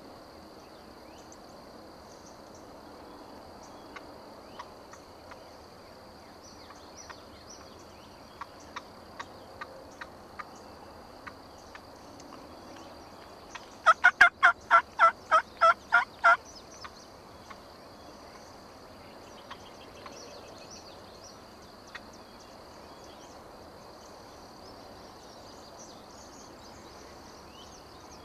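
Turkey calling: a run of about ten loud, evenly spaced notes, roughly four a second, lasting about two and a half seconds midway through, with softer notes a few seconds before. A steady high insect drone runs underneath.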